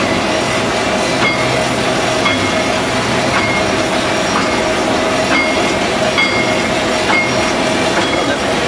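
Chain-driven bag-making machine running steadily: a continuous mechanical hum with a steady tone, and a sharp click roughly once a second as the gripper mechanism cycles.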